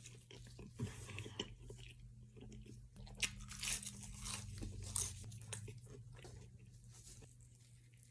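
Close-miked chewing and crunching of fast food: irregular bites and crackles while eating.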